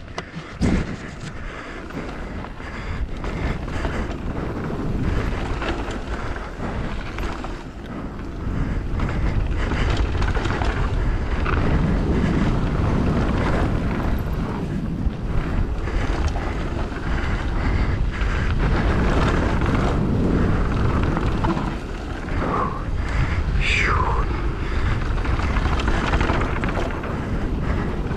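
Wind rushing over the microphone of a rider moving downhill at speed, growing louder about a third of the way in as the pace picks up. A brief falling high-pitched squeal cuts through about two-thirds of the way in.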